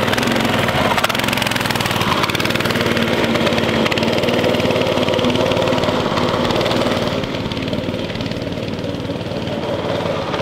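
Predator 212 small single-cylinder four-stroke engine on a homemade wooden go-kart, running steadily under load as the kart drives. About seven seconds in, the sound grows fainter and duller as the kart pulls away.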